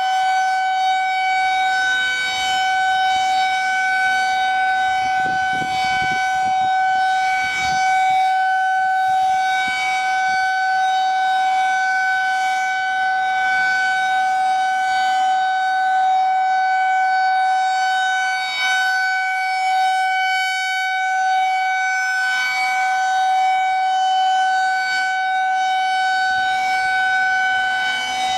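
Federal Signal 2001-SRN electromechanical outdoor warning siren sounding a scheduled siren test, holding one loud tone at a nearly steady pitch.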